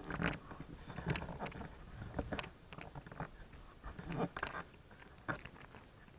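A series of irregular crunches and knocks, about a dozen, loudest in the first half and with a last one near the end.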